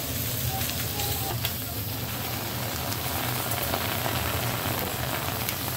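Raw chicken breasts and shrimp sizzling steadily on a hot steel hibachi griddle, over a low steady hum.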